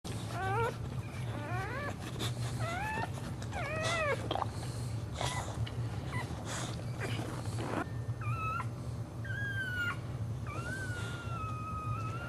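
Newborn puppies crying: several short, high-pitched rising-and-falling squeals in the first few seconds, then longer, drawn-out whines near the end. A steady low hum runs underneath.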